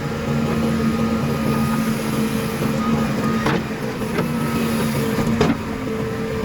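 Diesel engine of a JCB 3DX backhoe loader running steadily, with three sharp knocks in the second half.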